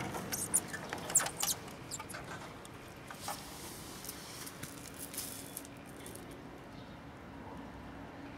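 Light taps and scratches, with a few short high-pitched chirps in the first second and a half, then only a faint hiss.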